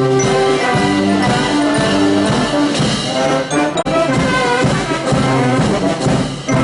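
Brass band music, with trombones and trumpets playing held notes that change in steps.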